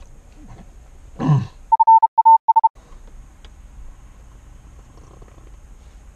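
A short low grunt, then an edited-in censor bleep: a steady beep tone of about a second, broken into four short pulses, with the other sound cut out under it.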